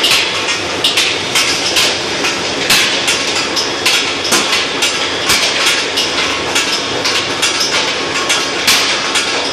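Hot-rolling steel-ball mill running, its spiral rolls forming red-hot steel balls from a bar, with frequent irregular metallic clanks over a steady mechanical noise.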